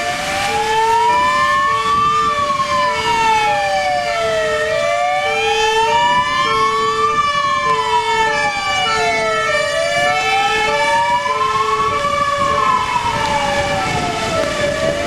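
Sirens of a Mercedes-Benz Atego fire engine on an emergency run. A slow electronic wail rises for about two and a half seconds and falls for about two and a half, over and over, while a two-tone hi-lo siren alternates its two notes about every half second underneath.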